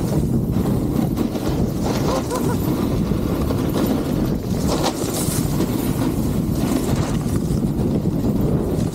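Wind rushing over an action camera's microphone as snowboarders ride down a groomed slope, with the hiss of board edges scraping the snow coming and going every second or two.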